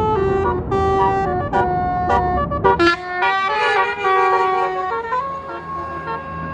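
A tour bus's basuri telolet horn plays a quick tune of stepping notes, with several horn tones sounding together. The bus engine runs underneath. Near the end the horn holds one chord, which fades.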